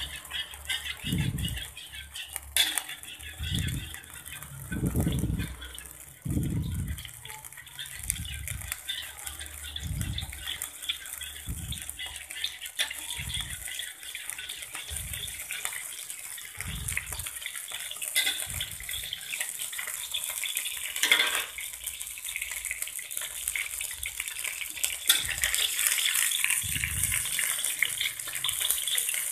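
Cooking oil heating in a pan on a lit stove: a steady hiss that grows louder near the end as the oil gets hotter, with low irregular thumps throughout.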